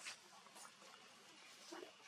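Faint sounds from a baby monkey: a short click just after the start and a brief squeak near the end, over a low hiss.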